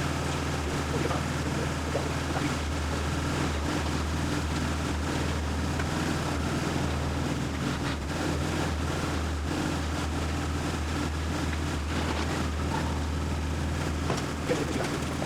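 A BMW E46 328i's straight-six engine running steadily at low revs.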